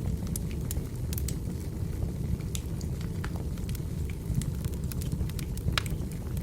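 Firewood burning: a steady low rumble of flames with frequent sharp, irregular pops and crackles of the wood.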